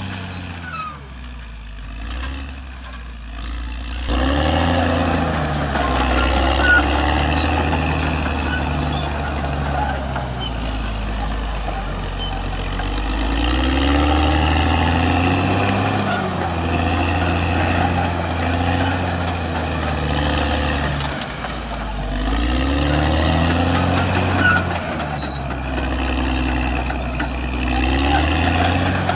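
Caterpillar D6R bulldozer's diesel engine working under load as the dozer pushes through brush, its note rising and falling several times. It is fainter for the first few seconds, then close and loud from about four seconds in.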